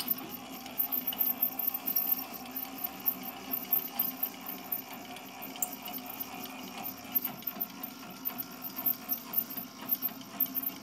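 Planer thicknesser's handwheel being cranked to wind the thicknessing table up: a continuous run of quick, uneven mechanical clicks and whirring from the table-raising mechanism, over a steady low hum.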